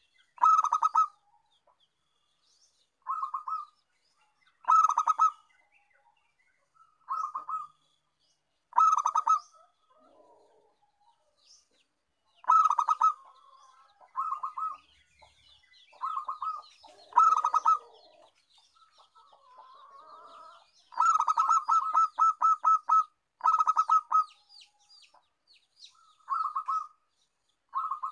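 Zebra dove (perkutut) calling: short phrases of rapid, stuttering coos repeat about every two seconds, with a longer unbroken run of coos about three-quarters of the way through.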